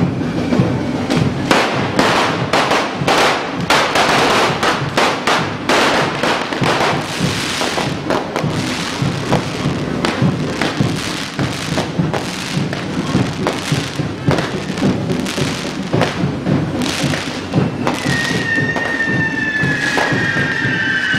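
Correfoc fireworks: spark fountains on a fire-beast figure and on hand-held poles hiss and crackle, with repeated firecracker bangs, over music. Near the end, a few high, slowly falling whistles join in.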